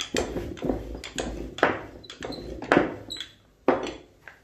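Wooden rolling pin rolled back and forth over dough on a wooden board, about two strokes a second, stopping shortly before the end.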